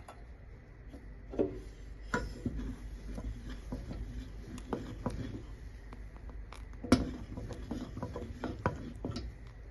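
Wooden spatula stirring ragi porridge in a steel saucepan, scraping and knocking irregularly against the pan; the sharpest knock comes about seven seconds in.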